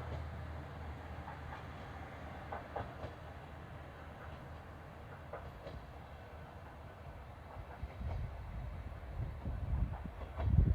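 Diesel railcar running on the Yodo Line: a steady low engine hum with scattered light clicks, then low thumping from the wheels on the track that grows louder over the last few seconds.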